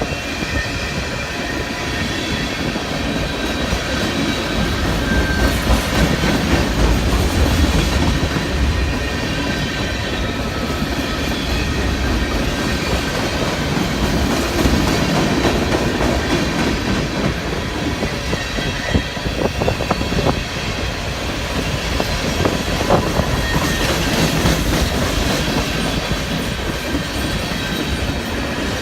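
Freight cars of a long CSX manifest train rolling past: a steady noise of steel wheels on rail, with clicks over the rail joints and a faint, thin wheel squeal.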